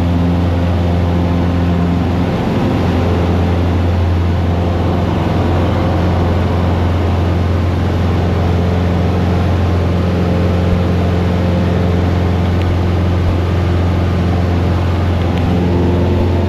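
Cessna 150's Continental O-200 four-cylinder piston engine and propeller running steadily, heard from inside the closed cabin: a loud, even drone whose pitch shifts slightly near the end.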